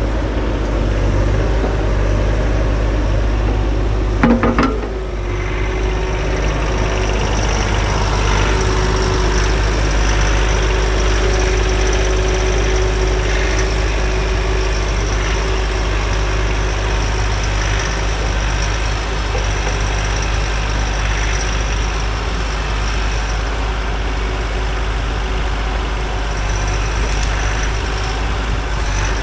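Bobcat E42 mini excavator's diesel engine running steadily under work, with a steady hydraulic whine, and a single sharp clank about four seconds in.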